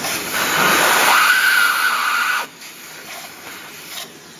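Workshop vacuum sucking metal swarf out of a freshly machined valve seat insert recess in a cylinder head: a loud rush of air with a whistle that rises and then holds, cutting off suddenly about two and a half seconds in.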